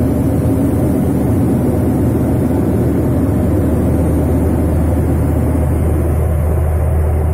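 Steady low drone of airliner cabin noise: the aircraft's engines and air systems running, with a strong deep hum that holds level throughout.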